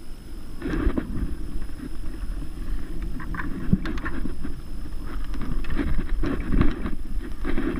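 Knocks and splashy rustling aboard a kayak, coming irregularly throughout.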